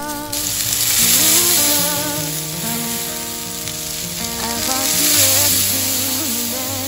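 Ground beef patties sizzling and frying on a hot stainless-steel flat-top griddle. The steady sizzle starts suddenly about a third of a second in.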